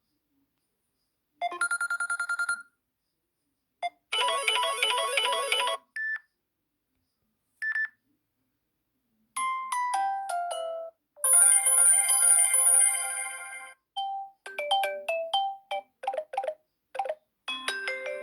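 Samsung Galaxy J5 (2016) ringtones played one after another, each a short electronic tune or chime cut off after a second or two, with silent gaps between them.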